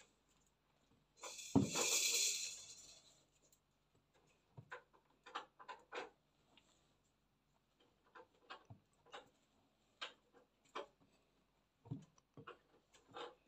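Silicone spatula scraping and knocking against a glass mixing bowl while folding macaron batter, in short irregular strokes. About a second in there is a louder rush of scraping noise with a knock.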